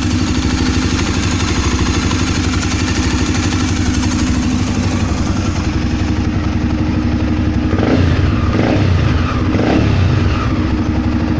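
Honda Twister motorcycle's single-cylinder engine idling steadily with the engine noise that the owner is showing, then blipped three times briefly about two-thirds of the way in.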